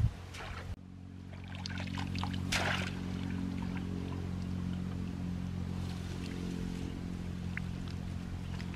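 Water splashing and trickling as a bamboo fish trap is handled in a shallow rice-paddy channel, with a few light clicks and one brief splash about two and a half seconds in, over a steady low hum.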